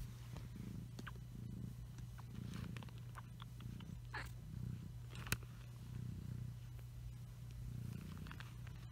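A mother cat purring steadily while her newborn kittens nurse, the purr swelling and fading in slow waves. Small soft clicks are scattered through it, with one sharp click a little past halfway.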